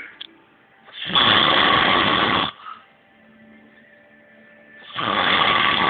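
A person snoring loudly: two long snores about four seconds apart, each lasting over a second.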